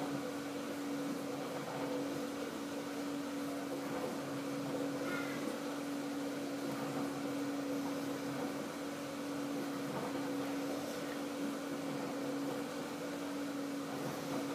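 A steady low electrical hum holding one constant tone, with faint rustling of a hand mixing dry flour in a glass bowl.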